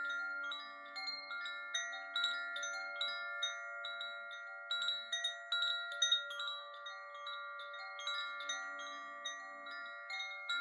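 Soft chime music: bell-like notes struck at an irregular pace, each ringing on so that several pitches overlap.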